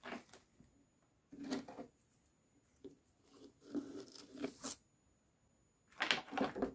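Kinetic sand being packed into a plastic mould and scraped level with a knife blade. It gives a soft, gritty crunch in four separate strokes, the longest about halfway through.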